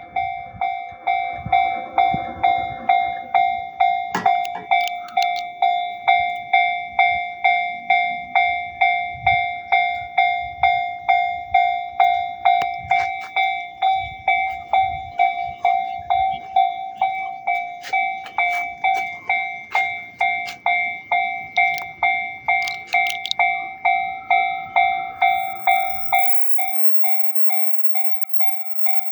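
Japanese level crossing warning bell ringing at about two strokes a second while a train passes, its wheels clicking over the rail joints. The train's rumble stops about three seconds before the end, and the bell keeps ringing, a little quieter.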